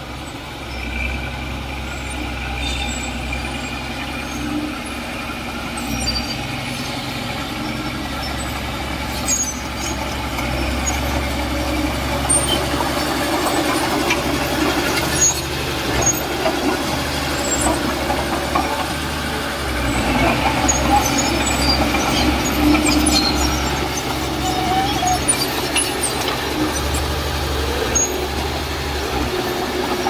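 Heavy diesel earthmoving machinery running steadily, a low engine drone with scattered short metallic clanks and squeaks over it.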